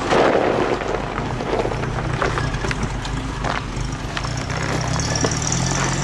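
An off-road vehicle's engine running at low revs as it crawls over a rough, rocky dirt track, with a crunch of gravel at the start and scattered knocks and clicks of stones.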